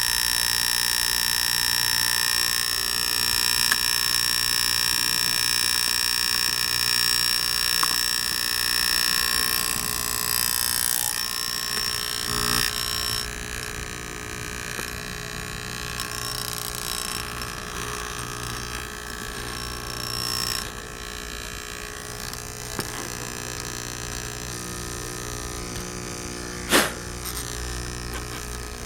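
Electric air pump for an air mattress, similar to a fish-tank air pump, running steadily with a hum and a steady high whine while it inflates the mattress. Its sound drops and changes about halfway through, and there is one sharp click near the end.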